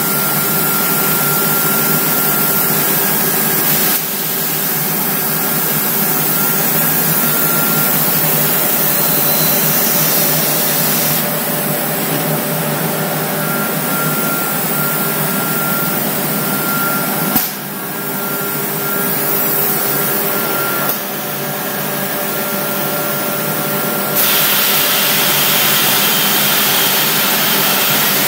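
Homag CNC machine running: a steady machine noise with a few held tones that changes abruptly several times, with one sharp click about two-thirds of the way through.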